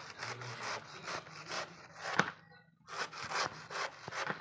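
Banana being rubbed back and forth on a hand grater: rasping strokes about two or three a second, with a sharp click about two seconds in and a short pause before the strokes resume.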